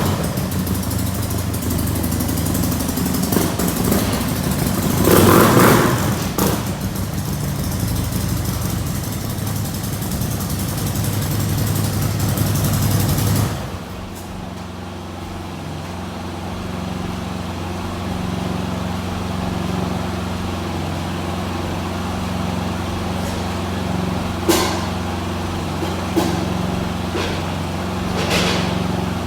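Harley-Davidson Road Glide V-twin engine running, louder and rougher at first with a brief rev about five seconds in, then settling to a steady idle about halfway through. A few sharp clicks come near the end.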